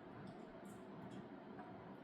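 Faint mouth sounds of sipping a neat whiskey: a few soft clicks and lip smacks over quiet room tone.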